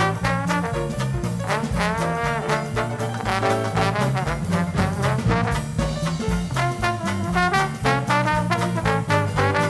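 Upbeat brass-led swing-style background music with a steady beat and a walking bass line.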